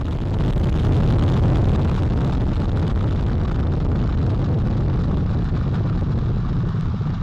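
Deep, steady rumble of NASA's Space Launch System rocket climbing just after liftoff, its four RS-25 core-stage engines and two solid rocket boosters firing.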